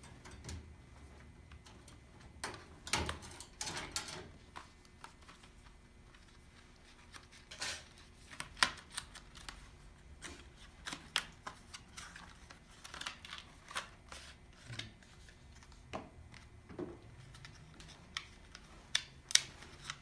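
Cardboard retail box and clear plastic clamshell tray being handled and opened by hand: scattered, irregular sharp clicks, taps and crinkles, a few of them louder snaps.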